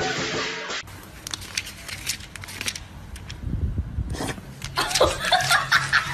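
Background music that cuts off, then scattered clicks and knocks, then a person's voice in short bursts.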